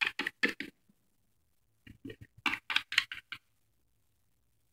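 A small plastic Littlest Pet Shop toy figure hopped along a shelf, each step a light tap: a short run of quick taps, a pause, then a longer run at about five taps a second.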